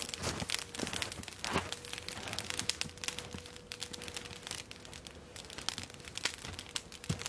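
Wood campfire crackling with scattered sharp pops, and footsteps crunching in snow.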